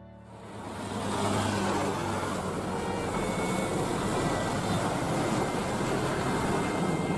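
Boeing 737-500 airliner's CFM56 turbofan engines on landing approach: a steady rushing jet roar with a faint high whine, fading in over about the first second.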